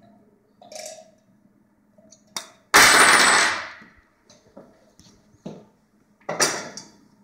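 Clicks and knocks of metal parts being handled during assembly of an IV stand's chrome five-legged base and pole, with one loud metallic clang near the middle that rings for about a second, and another knock near the end.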